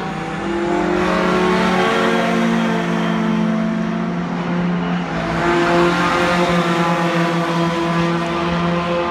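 Two racing pickup trucks passing at speed, their engines running hard. The engine sound grows louder about half a second in and peaks again around six seconds as they come close.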